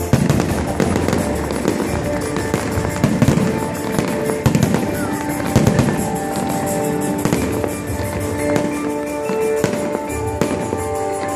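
Fireworks bursting, with deep booms and sharp crackling, over music with sustained notes. The bangs are densest in the first half; the music stands out more toward the end.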